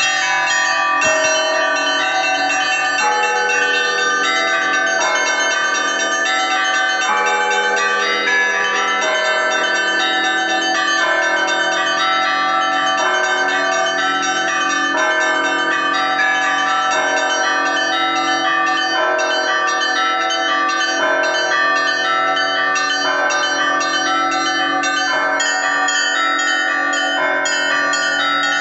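Russian Orthodox church bells rung by hand in the liturgical ringing that calls to the Divine Liturgy: many bells ringing continuously in a steady pattern that repeats about every two seconds.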